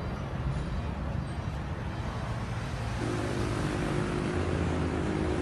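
Motor traffic noise: road vehicles running nearby, a steady rumble, with a steady engine drone coming in about three seconds in.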